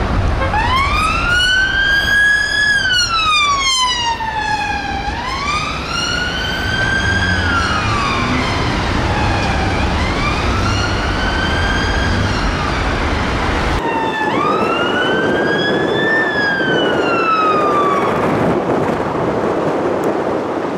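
Police car siren on a Metropolitan Police BMW 530d sounding a slow wail, rising and falling over engine and traffic noise. About two-thirds of the way through it cuts abruptly to a Mercedes-Benz Sprinter ambulance's siren, also wailing up and down.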